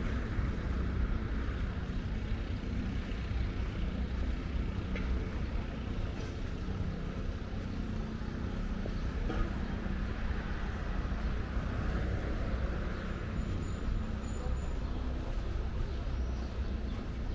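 Street ambience: steady road traffic noise from passing cars, with no single event standing out.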